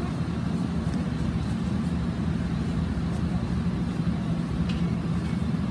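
A steady low machine hum runs throughout, with a constant drone in the low range.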